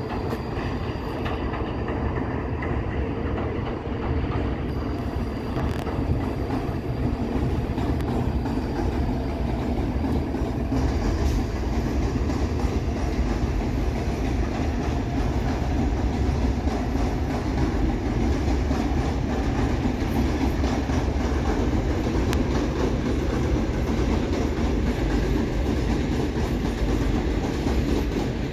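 Train passing on nearby tracks: a steady rumble with wheels clicking over rail joints, getting louder and brighter about ten seconds in.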